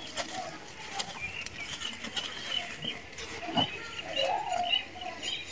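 A dry sand-and-cement slab crumbling and crunching between the hands, with gritty crackles and dry grains trickling down. Faint animal calls sound in the background.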